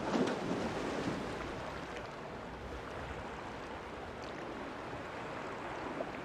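Steady wash of water noise from finswimmers racing in a pool, with a sharper splash right at the start as they turn at the wall.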